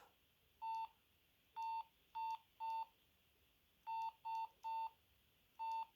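Samsung SGH-A300 mobile phone's keypad tones: eight short beeps, all on the same pitch, as its buttons are pressed to step through the menus. They come at uneven intervals, some in quick runs of two or three.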